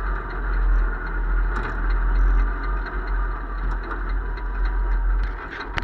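Vehicle engine running steadily as it drives out over rough ground, with light rattles through it and a few sharp knocks near the end.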